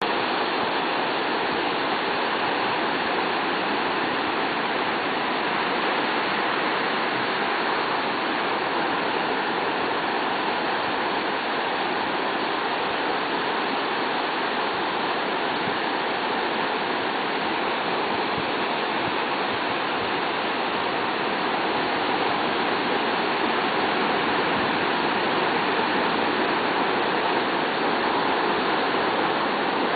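Ocean surf breaking on a beach: a steady rushing wash of waves, with no single wave standing out.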